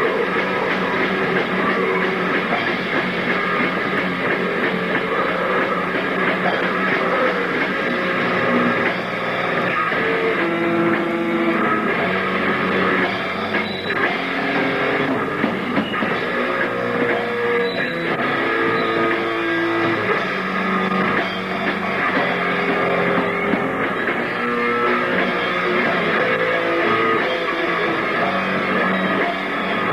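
Metal band playing live and loud: distorted electric guitar riffing over a drum kit, continuous and dense.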